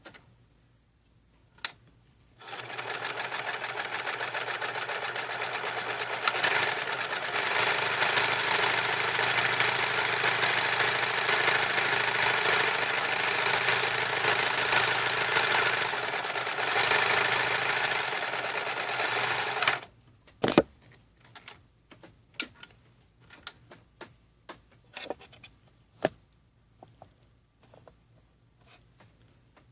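MORSE Model 5401 Stretch Stitch sewing machine stitching at a steady speed for about seventeen seconds, getting a little louder partway through, then stopping abruptly. A scattering of separate clicks and knocks follows.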